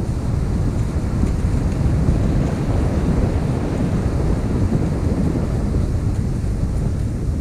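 Wind rushing over the microphone of a cross-country skier's body-worn camera as the skier glides along a groomed track, a steady low rumble and hiss.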